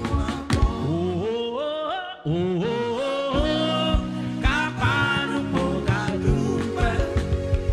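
Male singer performing live into a handheld microphone, his voice sliding between held notes, backed by a live band with a drum kit. The band briefly drops out about two seconds in.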